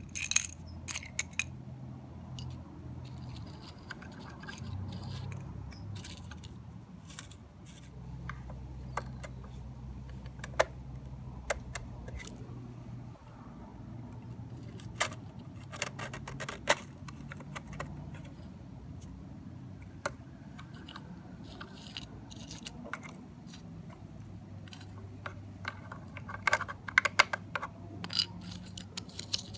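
Irregular small clicks and clatters of a First Gear diecast rear-loader garbage truck model being worked by hand, its packer panel and cart tipper moving and a small plastic cart knocking against the hopper, over a low steady hum.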